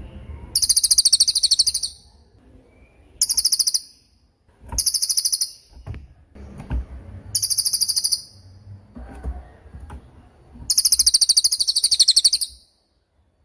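Cililin songbird calling in five bursts of very high, fast-trilled chirps, each about a second long, with short pauses between them.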